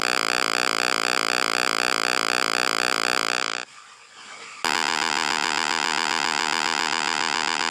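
Helicopter sound effect: a steady, buzzy, fast-chopping rotor drone that cuts off about three and a half seconds in. After a second's lull, a second buzzy aircraft-engine drone starts and runs on.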